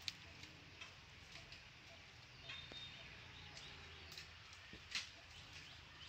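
Faint background with scattered sharp knocks and clicks, one right at the start and another about five seconds in, and a short high thin tone about two and a half seconds in.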